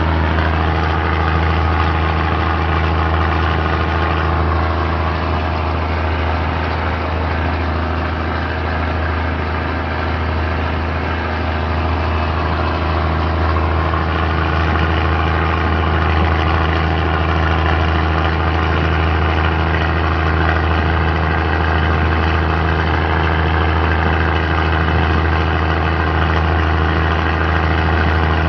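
Diesel passenger train heard from on board: a steady low engine hum under a constant running rumble.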